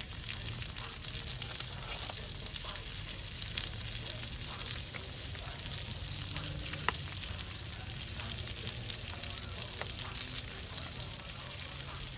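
Smash burger patties sizzling and frying in their fat, a steady hiss with scattered small crackles and one sharper pop about seven seconds in.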